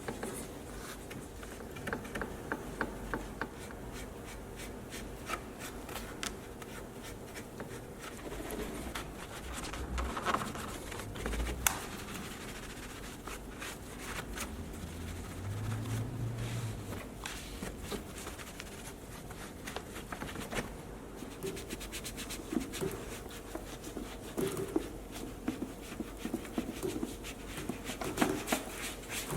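Hand cleaning work on a car: rubbing and scratching of a brush or cloth on a surface, with many scattered clicks and taps.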